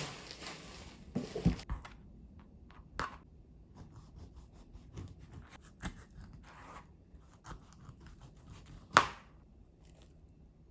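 Kitchen food-prep handling sounds: a rustle at the start, a few knocks, then scattered light clicks with one sharp click near the end.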